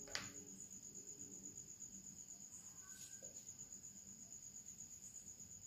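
Near silence: a faint steady high-pitched whine, with one soft click just after the start.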